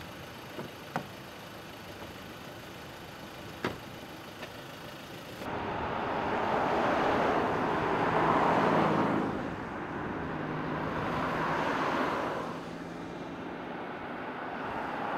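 Road traffic: after a low background with a few faint clicks, cars drive past on the road about five seconds in, their sound swelling twice and then easing off.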